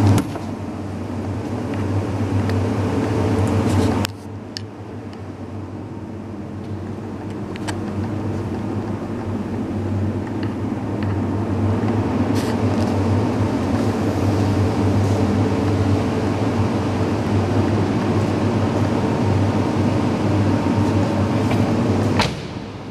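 Steady low mechanical hum, with a few faint clicks and a sudden drop in level about four seconds in.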